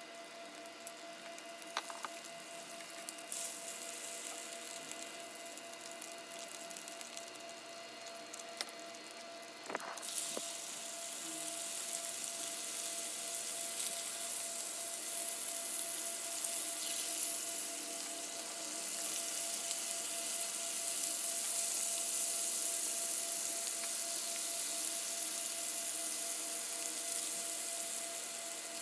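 Bacon sizzling in hot fat in a frying pan, with a few light clicks early on; the sizzle grows clearly louder about ten seconds in as the pan fills with more raw strips and stays strong.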